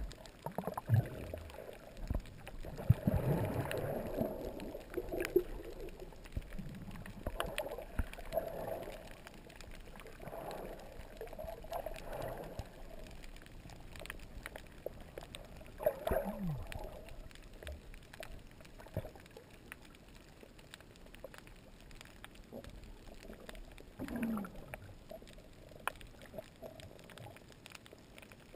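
Muffled underwater sound picked up through a waterproof action-camera housing: water moving around the camera, with gurgling bubble bursts every few seconds and faint scattered clicks. The bursts are loudest a few seconds in.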